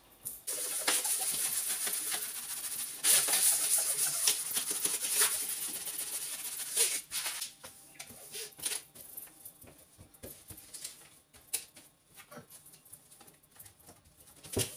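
A cleaning cloth being rubbed briskly over hard surfaces, a steady scratchy swishing that gets louder about three seconds in. After about seven seconds it turns quieter, to scattered light rubs and small taps as the cloth wipes the cabinet's metal shelf.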